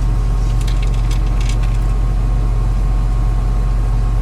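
Combine running steadily as a low, even drone, with a few faint light clicks about half a second to a second and a half in.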